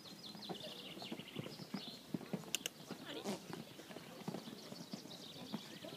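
Hoofbeats of a horse cantering on a sand arena, an irregular run of knocks.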